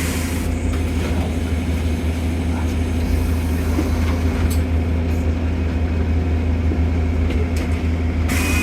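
Bus engine running with a steady low drone over road and cabin noise, heard from inside the passenger saloon. A short high beep starts near the end.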